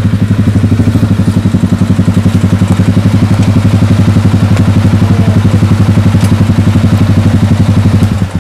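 ATV engine running close by as the four-wheeler pulls up and idles with a steady, even throb, then switched off and cutting out suddenly near the end.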